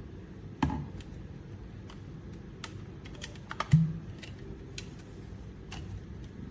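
Scattered light clicks and two louder knocks, about half a second in and near the middle, over a low steady hum.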